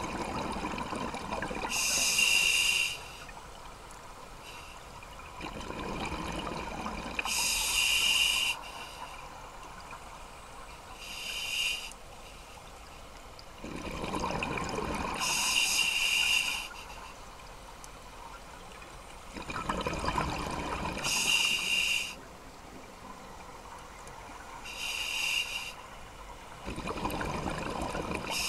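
Scuba regulator breathing underwater: rumbling bursts of exhaled bubbles alternating with about a second of sharp hiss from the demand valve on each inhalation, repeating every five to six seconds.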